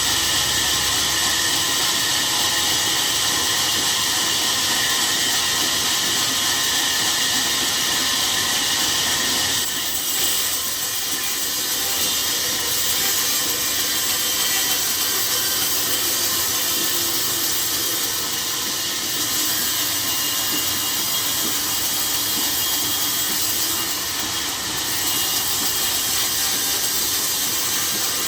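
Sawmill saw cutting through a log: a steady, high hiss that dips slightly in level a few times.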